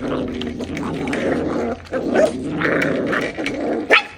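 Corgi puppies growling steadily as they crowd together eating from one bowl, with short clicks of lapping and chewing. There is one sharp louder sound near the end.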